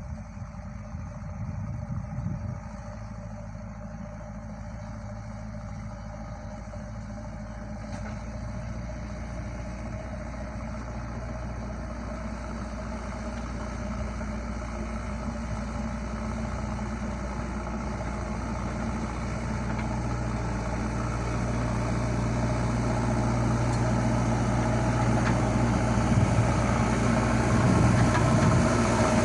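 Diesel engine of a JCB backhoe loader running steadily, growing gradually louder over the stretch.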